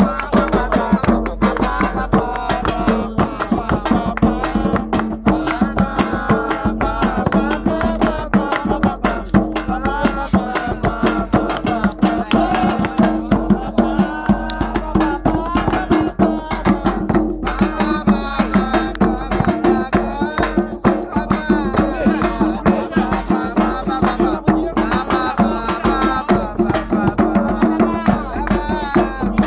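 Singing over fast, steady hand-drum beats, with a steady low drone underneath.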